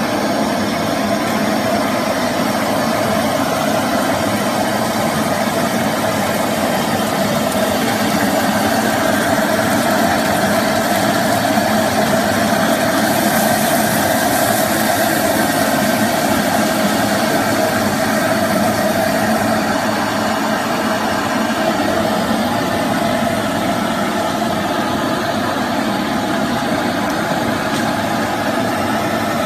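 Steady rushing noise of a restaurant kitchen's gas range burners and extraction. From about thirteen to sixteen seconds in, a brighter burst of hissing comes as the pan flares up in flames.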